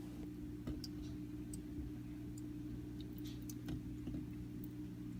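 Aquarium pump humming steadily, with scattered faint irregular clicks.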